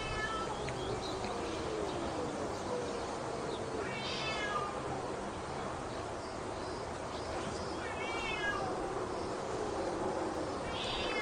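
Domestic cats yowling in low, drawn-out, wavering moans, with short higher-pitched cries about every four seconds.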